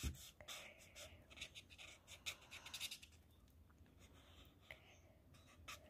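Felt-tip marker rubbing on sketchbook paper in quick short colouring strokes, faint; the strokes come thick for about the first three seconds, then only a few.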